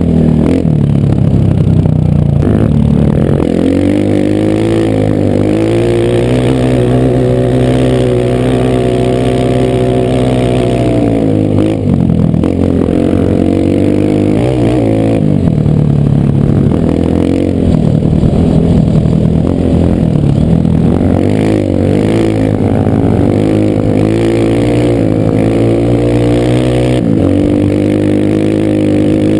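A Honda air-cooled single-cylinder four-stroke trail-bike engine riding under load, its revs rising and falling over and over, with stretches held steady for several seconds at a time.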